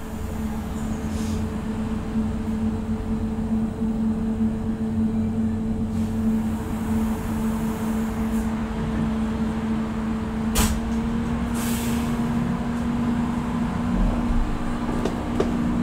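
The Van Hool AG300T trolleybus's auxiliary diesel engine idling steadily, heard from inside the passenger cabin. A sharp click comes about ten seconds in, followed shortly by a brief hiss of air.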